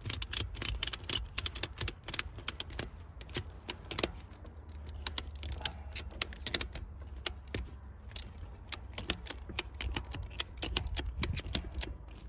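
Ratchet strap being cranked tight around a tractor tire, its ratchet clicking in quick irregular runs. The strap is squeezing the tire's tread to push the unseated bead back out toward the rim.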